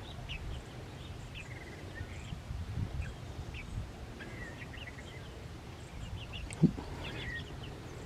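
Scattered short, high bird chirps and peeps over a low outdoor rumble, with one sharp click about six and a half seconds in.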